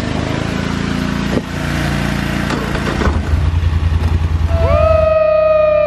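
Polaris Sportsman 850 ATV engine running, louder for a couple of seconds from about three seconds in. Near the end a long, slowly falling high tone sounds over it.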